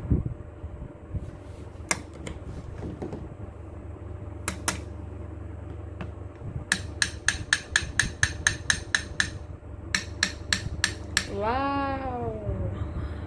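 Alexandrine parakeet's beak tapping fast on a plastic tabletop, about four or five knocks a second in two runs, with a few scattered knocks before them. After the second run it gives one drawn-out call that rises and then falls.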